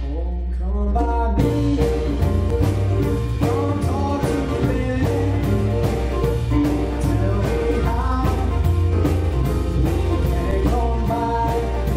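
Big band playing: saxophones, trumpets and trombones over electric guitars, piano and drum kit, with a steady beat. The drums stop for just over a second at the start, then the full band comes back in.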